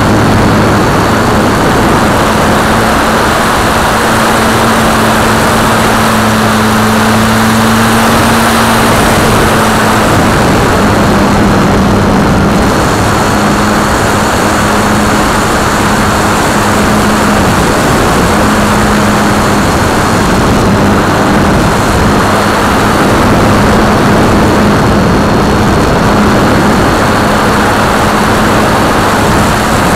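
The electric motor and propeller of a Multiplex FunCub RC plane, heard from its onboard camera in flight: a steady drone whose pitch shifts slightly now and then, under heavy wind rush on the microphone.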